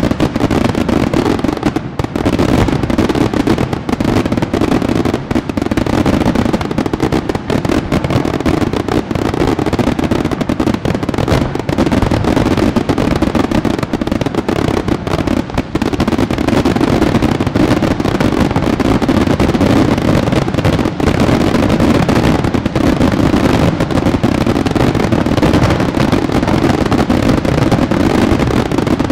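Fireworks barrage: a dense, unbroken rapid fire of bursts and bangs, loud and without a pause.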